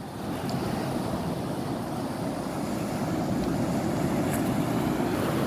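Sea surf washing and rumbling, mixed with wind on the microphone; it swells slightly about half a second in and then holds steady.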